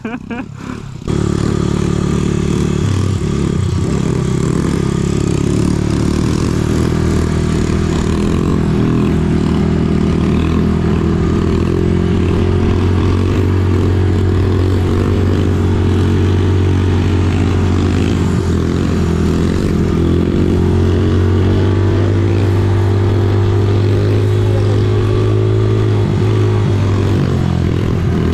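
Pit bike's single-cylinder four-stroke engine running at a steady, even speed while riding, heard close up. It starts abruptly about a second in.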